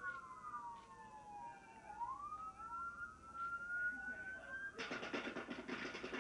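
Police sirens wailing in slow, overlapping sweeps, the pitch falling and then climbing back over a few seconds, heard on body-camera footage played through a monitor's speakers. Nearly five seconds in, a louder rush of noise cuts in over them.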